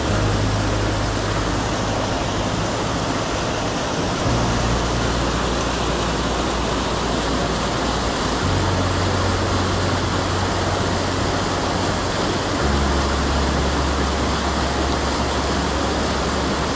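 Mountain stream water rushing steadily, with a low rumble underneath.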